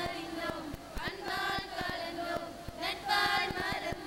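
A group of girls singing a song together in unison into microphones, in sustained phrases with short breaks between them.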